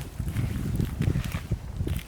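Wind buffeting the microphone as an uneven low rumble, with scattered sharp clicks and knocks over it.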